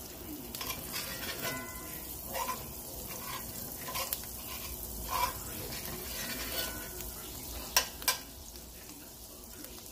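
Garlic herb butter sizzling as it melts in a cast iron skillet of steak drippings, stirred and pushed around with a metal spoon and spatula. A few light scrapes, and two sharp clicks of the utensil against the pan about eight seconds in.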